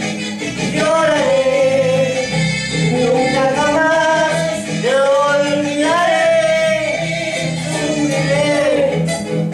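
A man sings a slow Spanish-language waltz (vals), holding long, wavering notes over an instrumental band accompaniment.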